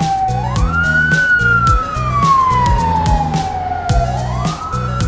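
Ambulance siren wailing: the pitch rises quickly, sinks slowly over about three seconds, then starts to climb again near the end. Background music with a steady beat plays underneath.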